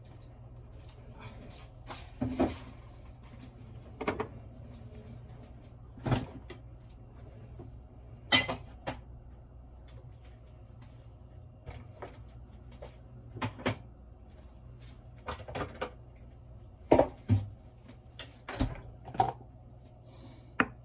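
Kitchen handling sounds: a dozen or so separate knocks and clunks, irregularly spaced about one to two seconds apart, as cupboard doors and items such as jars are moved and set down. A low steady hum runs underneath.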